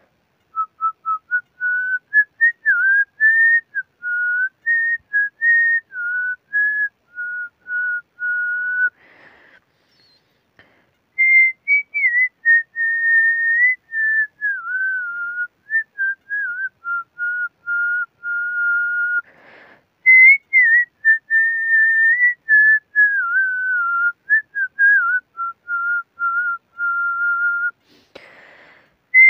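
A man whistling a song melody through pursed lips: one clear pure-toned line stepping and sliding up and down through a tune. It comes in long phrases broken by quick breaths about nine and nineteen seconds in and again near the end.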